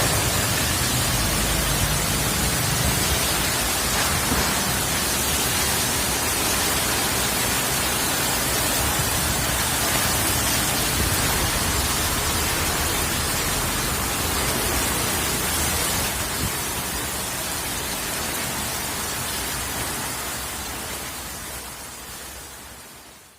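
Steady hiss of heavy rain and strong wind in a storm, fading out near the end.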